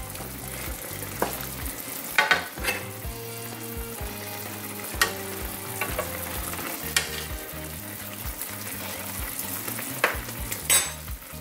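Chicken pieces simmering in a sweet-and-sour sauce in a nonstick skillet, a steady sizzle, with a handful of sharp clicks of a spoon against the pan as the sauce is stirred and scooped.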